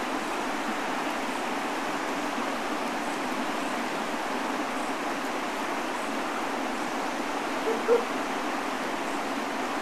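Steady rushing of a shallow river running over rapids and riffles, with one brief pitched blip about eight seconds in.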